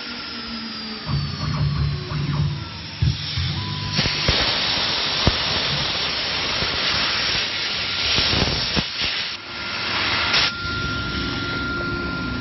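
The 5.5 kW water-cooled spindle of a stone CNC router whines as it spins down after carving, its pitch falling slowly. From about four seconds in, a loud, steady spraying hiss takes over and stops shortly before the end.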